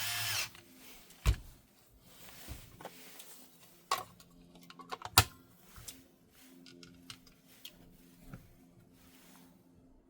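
A few sharp clicks and knocks of small hard objects being handled, with scattered lighter ticks between them and a brief high squeak right at the start.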